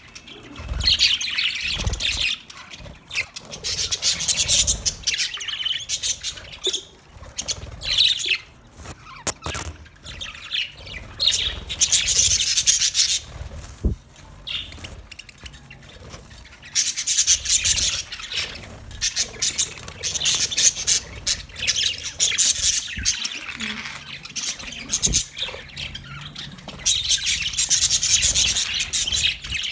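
Parrots chirping and squawking in rapid, high-pitched chatter that comes in bursts of several seconds with short lulls between.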